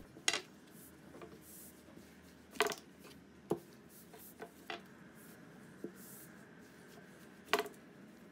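Thin wooden rolling pin (oklava) knocking and rolling on a wooden board as a sheet of baklava pastry dough is rolled out around it: a few soft, scattered knocks, the loudest near the end, with faint rubbing between.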